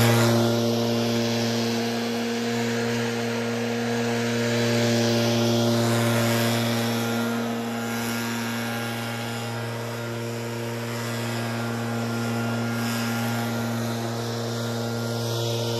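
Backpack leaf blowers, two-stroke engines, running at steady speed with their fan rushing air. The sound is loudest at the start, as a worker's blower passes close, then eases off and swells gently as he moves off.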